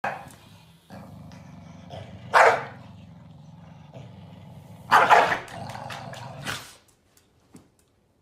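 Corgis growling and barking at each other over a toy: a steady low growl with loud barks at the start, about two and a half seconds in, and a burst around five seconds, stopping just before seven seconds.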